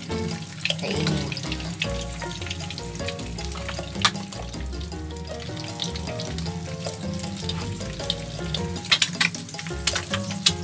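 Eggs sizzling as they fry in oil in a nonstick pan, a steady crackling hiss, with a few sharp clicks about four seconds in and again near the end.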